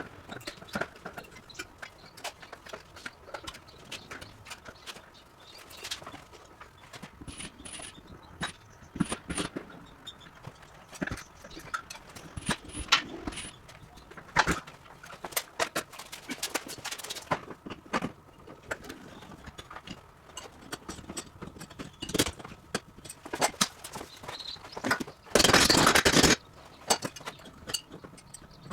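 Irregular knocks, clicks and clatter of hands-on dismantling work, with a loud noisy burst lasting about a second near the end. A bird chirps in short runs twice in the middle.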